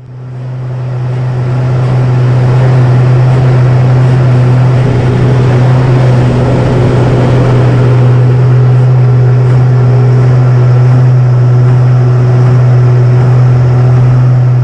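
Aerobatic aircraft's engine running with a loud, steady low drone that holds one pitch, rising in over the first two seconds.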